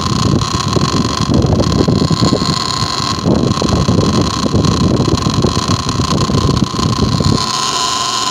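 Patton 12-inch rotary box fan running with a loud rattling racket over a steady whine. The rattle stops abruptly about seven seconds in, leaving the motor's even hum. The racket comes from the blade hub's worn sleeve letting the blade run loose on the motor shaft.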